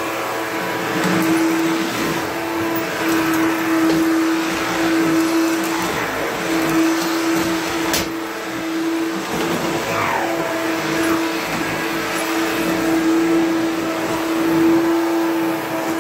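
Hoover Power Drive upright vacuum cleaner running steadily with a constant motor hum and airflow noise. Its pitch dips briefly now and then as the nozzle is worked, and there is a single sharp click about halfway through.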